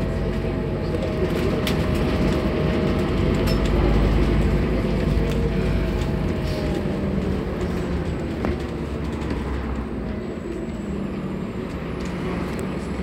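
Scania N230UD double-decker bus's diesel engine running as the bus drives along, heard from the upper deck: a steady low rumble with a faint whine that slowly falls in pitch, swelling about four seconds in and then easing off, with a few light rattles.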